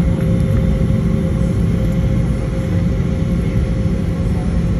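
Steady engine hum and low rumble inside a jet airliner's cabin as it taxis after landing, with a couple of steady tones running through it.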